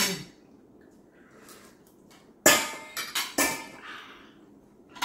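Spoons and forks clinking and knocking against plates: a sharp clink at the start, a loud run of three about halfway through, and another near the end.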